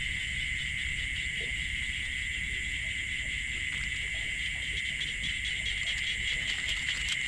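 Insects trilling in a steady, unbroken chorus, with a low rumble of background noise underneath.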